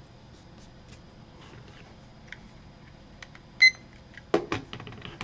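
A digital kitchen timer gives one short electronic beep as its button is pressed to start the count. It is followed by a few knocks as the timer is handled and set down on the desk.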